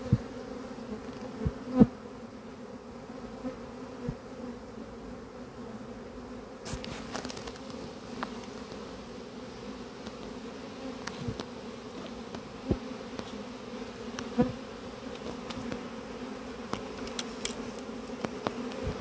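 Honeybee swarm buzzing as a steady hum while it is moved into a nucleus hive box, with a few short sharp knocks, the loudest about two seconds in.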